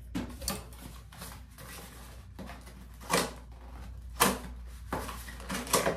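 Handling noises as skincare products and their packaging are moved about: scattered light rustles and knocks, with sharper clacks about three and about four seconds in.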